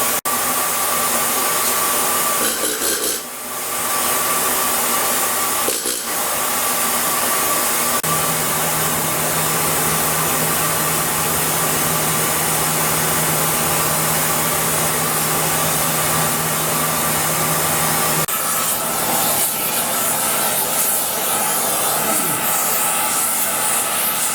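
Gas heating torch flame running with a steady hiss, preheating a thick steel shaft and plate before welding. The hiss dips briefly twice in the first six seconds, and a low steady hum joins it for about ten seconds in the middle.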